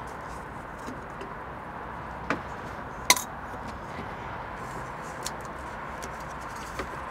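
A few sharp clicks and knocks as a binnacle compass is gripped and twisted in its mount, the loudest about three seconds in, over a steady background hiss.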